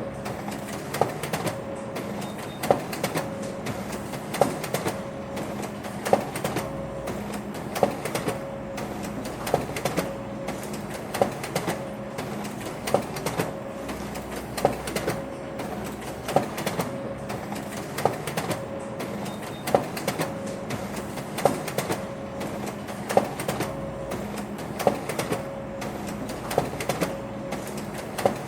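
Office printer running: a sharp mechanical clack about every second and a half to two seconds over a steady motor hum.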